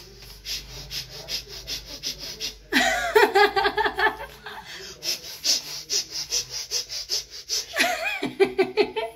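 Quick rhythmic breathy puffs, then a woman bursts into loud laughter about three seconds in. She keeps laughing in breathy pulses, with another loud burst of laughter near the end.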